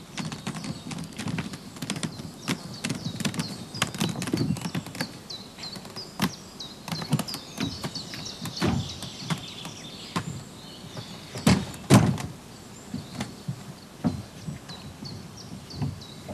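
Irregular knocks and thuds of beehive supers being handled and loaded onto a trailer, with two heavy thumps close together about twelve seconds in. Small birds chirp repeatedly in the background.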